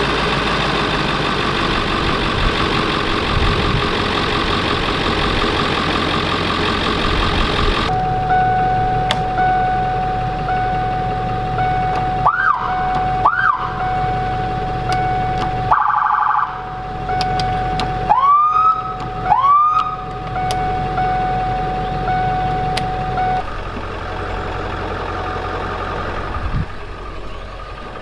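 An ambulance's Whelen electronic siren tried from the cab console: two short whoops, a brief horn-like blast, then two rising whoops, over a steady tone and a regular light ticking. Before that, for about the first eight seconds, an engine is running steadily.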